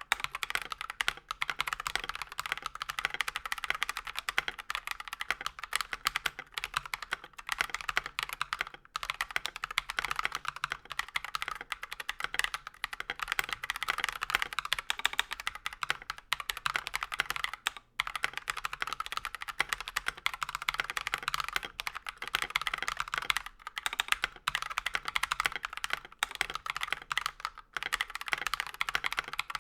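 Akko 3098 mechanical keyboard with stock Akko Rose Red linear switches and ASA-profile keycaps, typed on fast and continuously, a dense run of key clacks with a few brief pauses.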